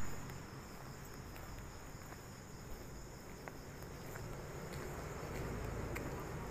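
Steady night-time chorus of crickets, a constant high-pitched trill, with a few faint scattered ticks.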